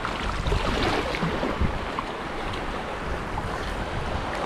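Sea waves washing onto the beach, with wind rushing across the microphone: a steady noise.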